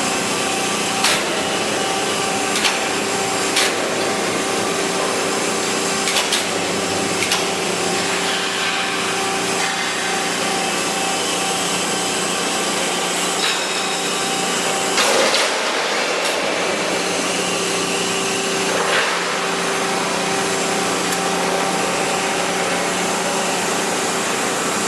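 Sheet-metal bending machine running with a steady, loud mechanical hum, broken by several sharp metallic clicks and knocks.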